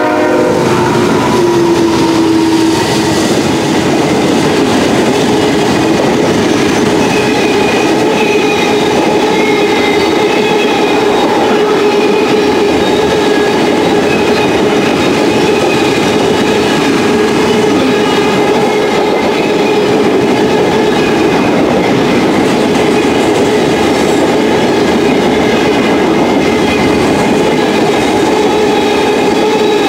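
Canadian National freight train passing close by at speed: the GE locomotives go by, then a long line of freight cars rolls past with continuous wheel-on-rail noise and a steady whine. The end of the horn trails off in the first couple of seconds.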